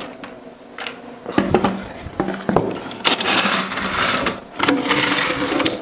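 Metal parallel clamps handled on a wooden workbench: several sharp knocks as they are set down, then two longer stretches of rattling scrape as the clamp jaws are slid along their steel bars.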